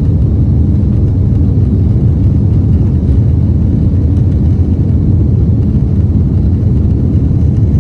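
Airbus A330 cabin noise during the climb after takeoff: the twin jet engines and rushing air make a loud, steady low rumble inside the cabin.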